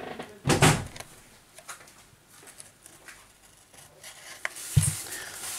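Handling noise from a smartphone being turned and gripped in the hands over a cork work mat: a dull knock about half a second in, faint taps and rubs of fingers on the glass and frame, and another knock near the end.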